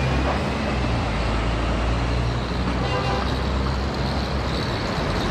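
Street traffic with a double-decker bus's engine running low as the bus drives past. The engine hum eases about two and a half seconds in, leaving steady road noise.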